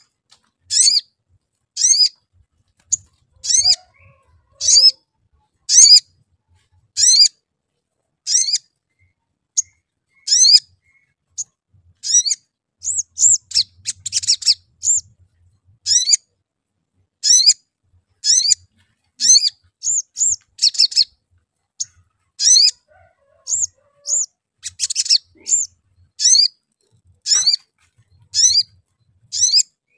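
Male olive-backed sunbird (sogon) chirping: short, sharp, high 'cuit' notes at about one a second, broken twice by quick runs of rapid twittering notes, near the middle and again later on.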